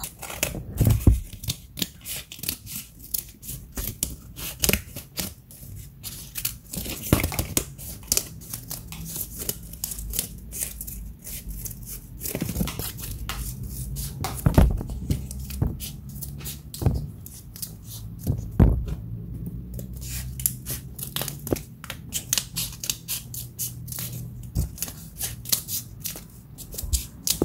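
Black-handled metal scissors snipped open and shut close to the microphone: an irregular run of sharp metallic snips and scrapes, several a second.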